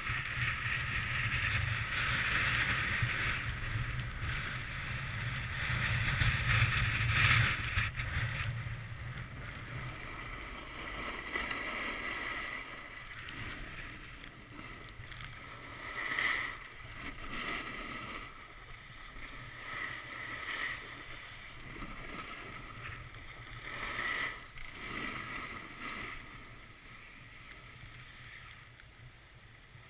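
Snowboard riding downhill: wind rushing over the camera microphone with a low rumble, mixed with the board's edge hissing and scraping over packed snow. It is loudest for the first several seconds, then quieter, with brief swells of scrape as the board turns.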